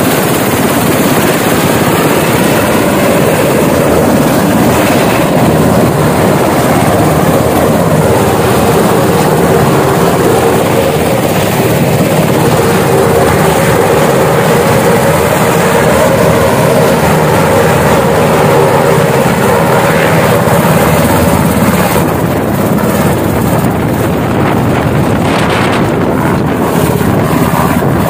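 A Sikorsky UH-60 Black Hawk helicopter running loud at close range: the twin turbine engines whine steadily under the beat of the main and tail rotors. In the second half the helicopter lifts off and climbs away.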